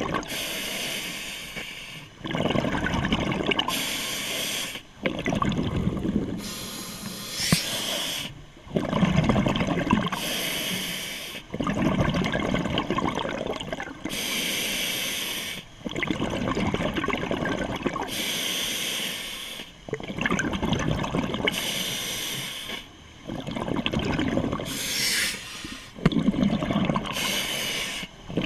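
A scuba diver breathing through an open-circuit regulator underwater: hissing inhalations through the demand valve and bubbling exhalations, repeating every few seconds.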